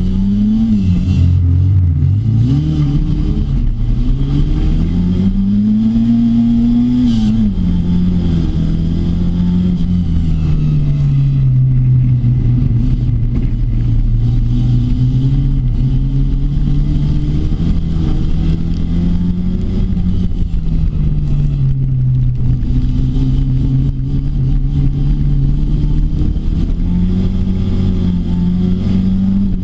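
Rookie rod racing car's engine heard from inside the cockpit at racing speed. Its revs rise and fall sharply with the throttle for the first few seconds, then run at a steadier pitch with gentle swells.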